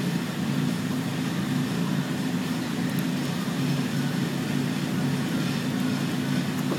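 Steady low mechanical hum of a running machine, even throughout, with a faint click about three seconds in.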